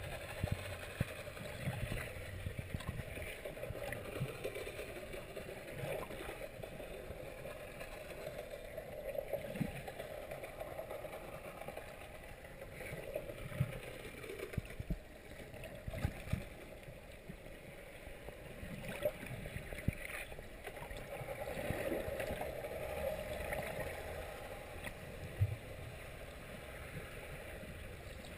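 Muffled underwater water noise heard through a GoPro Hero 2's waterproof housing: a steady wash with scattered short knocks.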